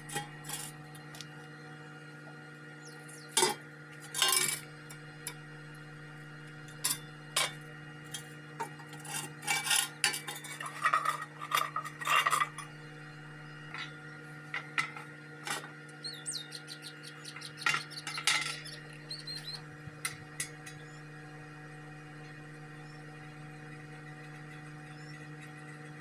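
Thin steel sheets clinking and scraping against each other as they are handled and set in place, with several sharp metallic knocks between about 3 and 19 seconds in, then only a steady electrical hum.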